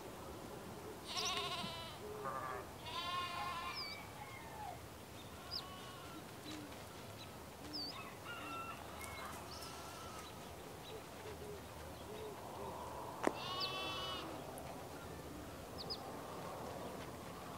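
A mixed flock of sheep and goats bleating while grazing: wavering calls about a second in and about three seconds in, fainter ones after that, and another loud one after about thirteen seconds.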